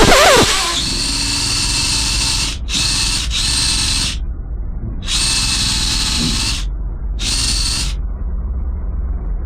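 Cordless drill boring into the brick and concrete oven base in five stop-start bursts of motor whine, each lasting half a second to two seconds. The bit is snagging on a plastic bag left inside the hole, and the drill jams after the last burst.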